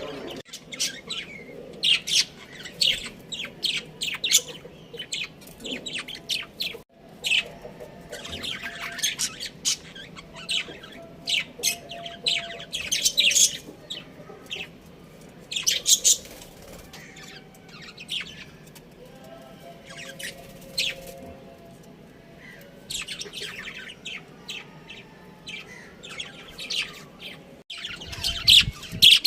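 Budgerigars chirping in repeated bursts of quick, high chirps.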